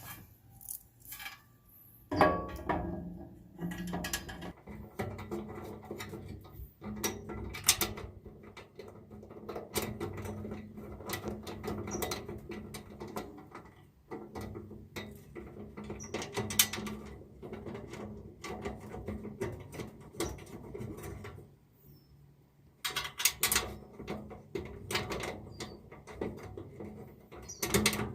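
Metal grill parts being handled and fitted: a steel leg brace set against the legs and screws started into it, giving irregular clicks, clanks and scraping. There is a short lull a little past the middle.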